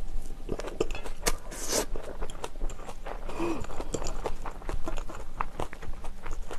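Close-miked chewing of a mouthful of bibimbap made with herring roe and green chilli, with many small wet clicks and crackles. A metal spoon clinks and scrapes against a stainless steel bowl as more is scooped.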